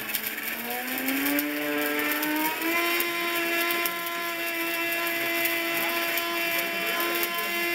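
Countertop blender motor running with a tape measure in the jar, its pitch stepping up over the first few seconds and then holding steady. Scattered clattering from the tape measure's pieces knocking around the jar.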